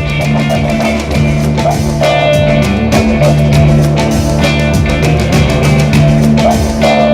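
Background rock music with electric guitar and drums, a steady beat.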